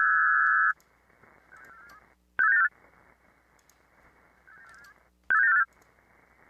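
VARA-HF digital modem audio through an HF radio: a steady band of data tones stops about three-quarters of a second in, leaving receiver hiss. Short bursts of data tones come twice, about 2.5 and 5.3 seconds in, as the modem tries to re-link after the frequency change.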